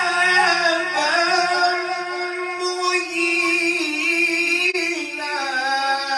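A man reciting the Quran in the melodic tilawat style, holding one long high note with small ornamental wavers, then moving into a new phrase near the end.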